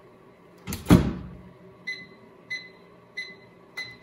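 Over-the-range microwave oven door swung shut with a thud about a second in, followed by four short keypad beeps roughly every two-thirds of a second as the cooking time is entered.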